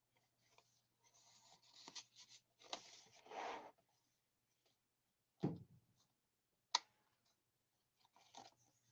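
Faint rustling and sliding of paper as a tag is slipped into a paper pocket and the journal's pages are handled and pressed flat, with a soft thump about five and a half seconds in and a single sharp click a moment later.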